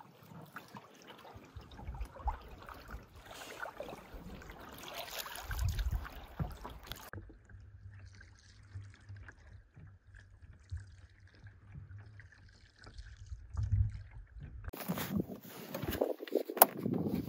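Canoe on the water: paddle strokes with water trickling and gurgling. A low rumble runs through the middle stretch, the sound changes abruptly twice, and there is a sharp click near the end.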